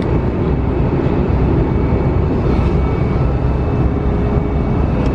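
Jet airliner cabin noise: a steady, loud low rumble of engines and rushing air that does not change.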